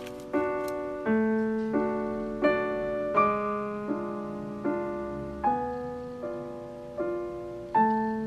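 Background piano music: a slow melody of single struck notes, each fading away, over held lower notes.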